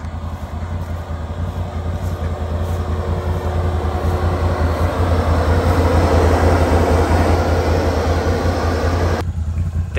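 Can-Am Renegade ATV's V-twin engine idling steadily, getting louder over the first six seconds or so.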